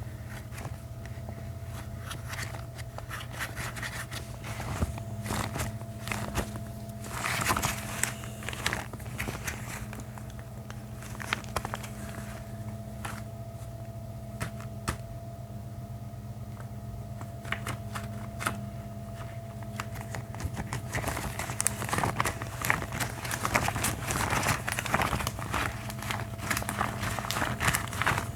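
Gloved hands rubbed and crinkled close to the microphone, making irregular crackles, clicks and rustling that come thicker about a quarter of the way in and again over the last third. A steady low hum runs underneath.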